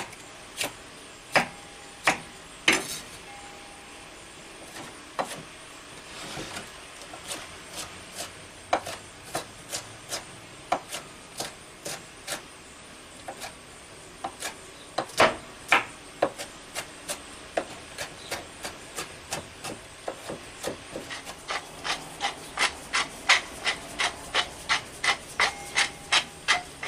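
Chef's knife dicing peppers on a wooden cutting board: irregular knocks of the blade on the board. Near the end, a faster even run of clicks, about two or three a second, as a wooden pepper mill is turned.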